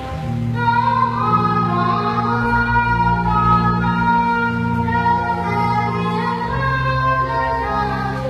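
A hymn sung by female voices over an instrumental accompaniment with long held bass notes that change every second or two.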